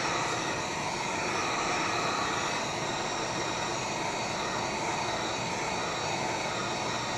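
Heat gun blowing hot air steadily, heating the edges of a tablet's glass digitizer so it can be lifted off.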